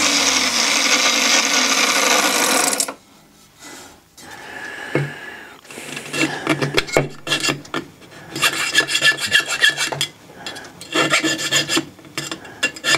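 An angle grinder with a cut-off disc runs, then stops abruptly about three seconds in. After a short pause, a hand file rasps against the end of a steel tube in several bursts of quick back-and-forth strokes, working on the freshly cut slots.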